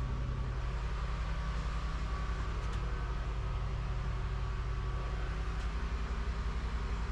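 A motor running steadily with a low hum and a fast, even pulse.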